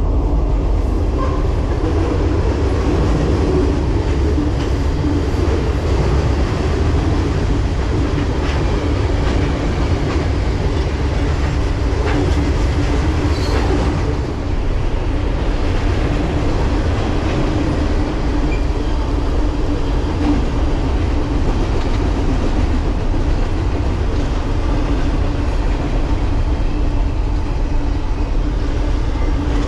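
A long train passing on the tracks close by, its wheels running steadily over the rails without a break.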